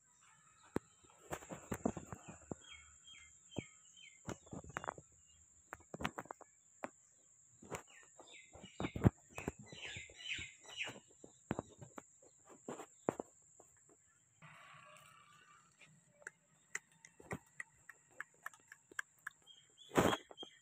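Outdoor farmyard ambience: birds chirping in short quick runs, twice, over scattered sharp clicks and knocks and a steady thin high-pitched whine.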